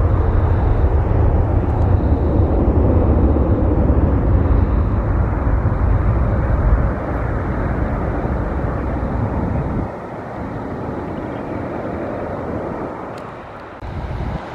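Boeing 747-8 freighter's four GEnx turbofans at takeoff power as it climbs away: a loud, steady jet roar with a deep rumble. The roar drops abruptly about seven seconds in and again about ten seconds in, fainter as the aircraft recedes.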